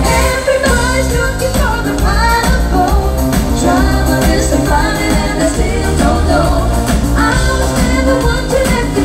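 Live pop music with a band and singers on stage: a vocal line over a steady bass-heavy beat, heard from among the audience.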